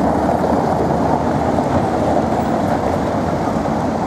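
Steady rumble of city street traffic, with no single distinct event.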